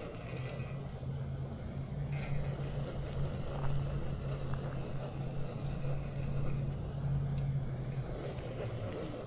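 A motor running with a steady low hum that fades out near the end.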